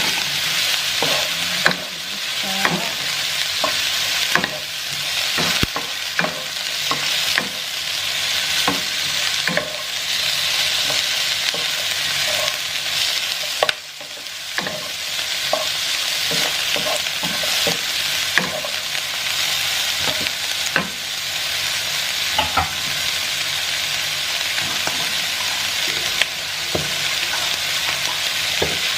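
Vegetable stir-fry sizzling in a hot pan while it is stirred: a steady frying hiss with frequent sharp clicks and scrapes of a utensil against the pan. The sizzle briefly drops in loudness about halfway through.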